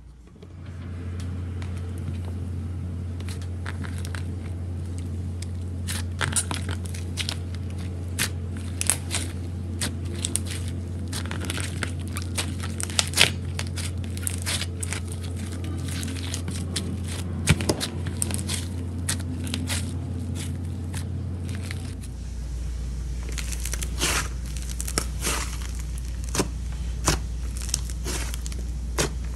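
Slime being squeezed, stretched and poked by hand, giving irregular sticky crackles and small popping clicks. A steady low hum runs underneath and drops in pitch about 22 seconds in.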